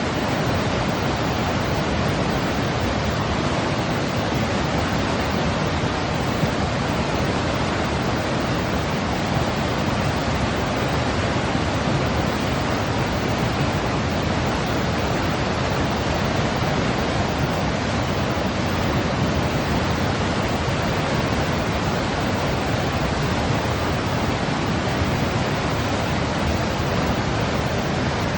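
White noise played to soothe a baby: an even, unchanging hiss.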